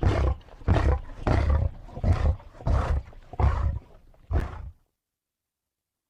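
White tigon (tiger–lion hybrid) giving a rhythmic series of deep roars, about seven calls roughly two-thirds of a second apart, the last one short. The series stops a little under five seconds in and the sound cuts to silence.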